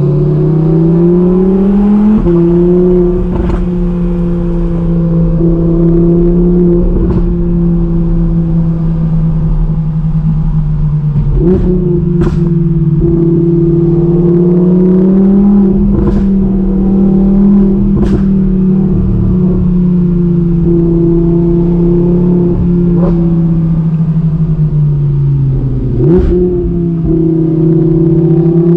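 Audi R8's V10 engine heard from inside the cabin on a spirited drive, revs climbing and falling with quick gear changes, including a sudden jump in pitch near the end. Several sharp clicks come through over the engine.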